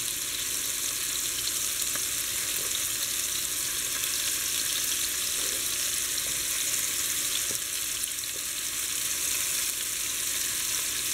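Floured beef stew cubes sizzling as they sear in hot olive oil in a pot, a steady frying hiss.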